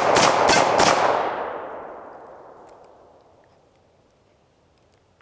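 Dan Wesson 715 revolver firing .357 Magnum in quick double action: the last three shots of a string come about three a second, ending about a second in, and the reports echo away over the next two seconds. Two faint clicks come near the end.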